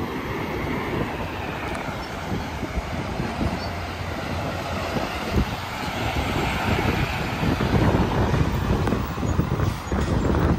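Heavy vehicle traffic rumbling past: a steady mix of tyre and engine noise that grows louder over the last few seconds.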